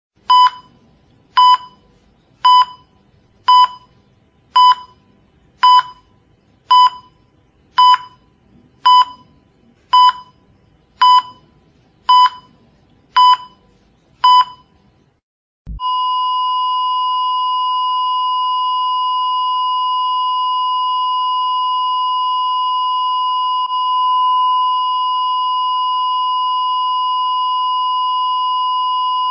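Heart monitor (ECG) beeping, one short pitched beep about every 1.1 seconds, fourteen in all. About halfway through it switches to a single unbroken steady tone, the flatline alarm that signals the heart has stopped.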